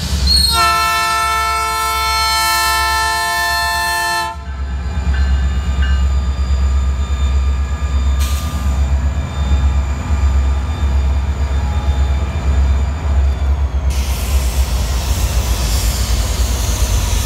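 BNSF diesel locomotive No. 2558 sounding its multi-chime horn once for about four seconds, the warning for the grade crossing it is passing over. After that the locomotive and its train rumble steadily past at close range.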